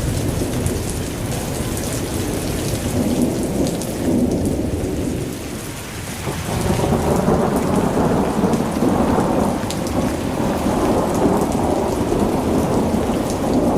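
Heavy rain pouring down, with a dense low rumble under the patter. It eases briefly and then comes back louder about six seconds in.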